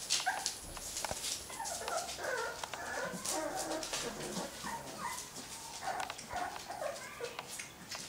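One-month-old boxer puppies yipping and whining in many short, squeaky calls as they play together, starting about two seconds in. Sharp scratching and rustling from their paws on newspaper runs underneath.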